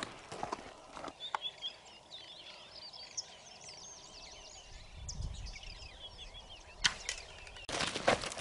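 Many small birds chirping in quick, overlapping calls, with a few crunching steps on dry ground at the start and a single sharp snap near the end. Dense crunching and rustling come in abruptly just before the end.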